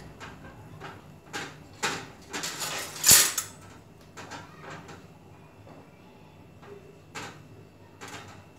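Kitchen clatter: a few sharp knocks and clicks, with a louder rattling clatter about three seconds in and two more single knocks near the end.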